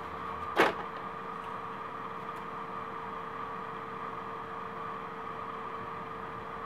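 Steady room hum with a constant mid-pitched tone, and one short knock about half a second in as the motherboard is handled.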